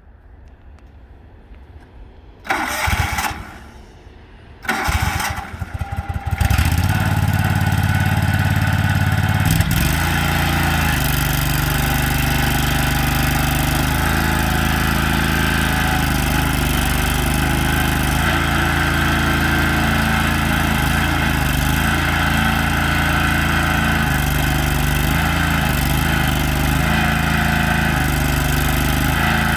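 Lay-Mor LB-30 backhoe engine cranked by the starter twice, catching on the second try about six seconds in, then running steadily.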